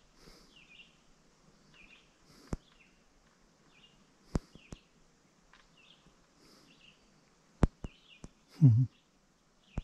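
Faint, short, high chirping calls repeating about once a second against quiet outdoor ambience, with several sharp clicks and a brief low voice sound near the end.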